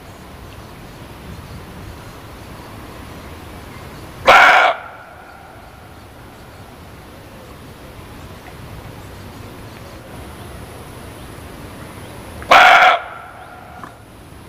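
Muntjac (barking deer) giving two sharp single barks, each about half a second long and some eight seconds apart, each trailing off in a short echo, over a steady background hiss.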